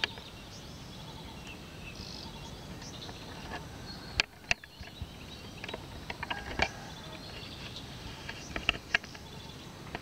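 Outdoor ambience with scattered short, high bird chirps, broken from about four seconds in by several sharp clicks.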